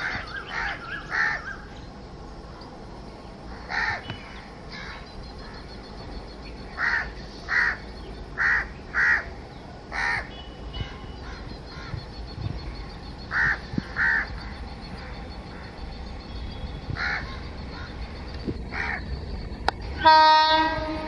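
Crows cawing repeatedly over the low rumble of an approaching train. Near the end, the WAG-5HA electric locomotive's air horn sounds in one loud blast of about a second.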